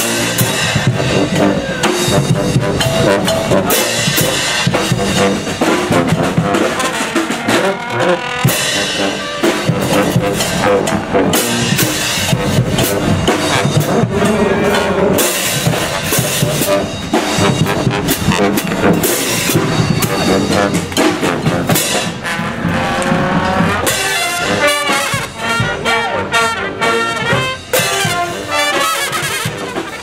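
Brass street band playing live: trombones and trumpets over marching drums and cymbals, loud and without a break.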